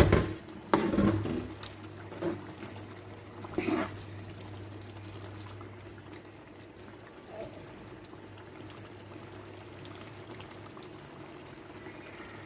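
Pot of soup simmering on the stove, a steady sound of liquid bubbling. There are a few sharp knocks against the pot in the first four seconds.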